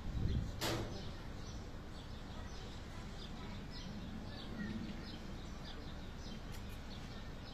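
Small birds chirping over and over in the background, short high chirps throughout. A low rumble near the start and a single sharp click a little under a second in.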